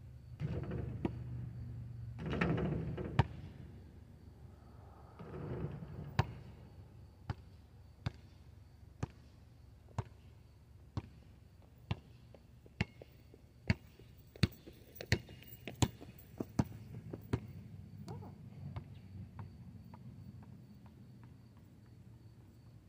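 A basketball hits the hoop after a jump shot, with a sharp hit about three seconds in. Then it is bounced again and again on an asphalt court, about one bounce a second, the bounces coming faster and louder before stopping.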